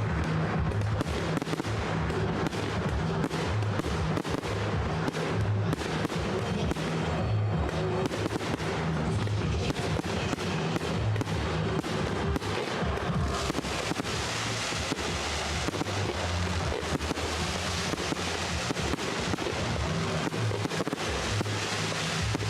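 Fireworks bursting and crackling over music with a steady bass line. About halfway through, a denser crackling hiss joins.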